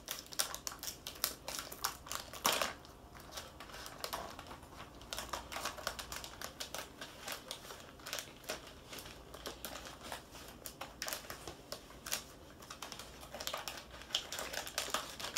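Scissors snipping and working through a crinkly plastic candy-kit bag, with the bag rustling as it is turned in the hands: a run of small irregular clicks and crinkles.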